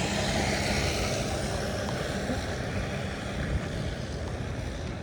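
Street traffic noise: motor vehicle engines running steadily under a broad hiss.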